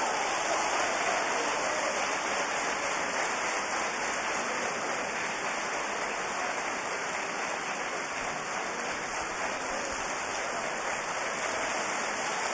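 Studio audience applauding steadily and at length, a dense, even clapping that neither builds nor fades.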